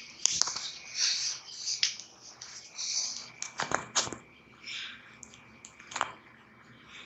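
Hissy rustling handling noise broken by several sharp clicks and taps, a cluster of them about three and a half to four seconds in and another at about six seconds, over a faint steady high-pitched whine.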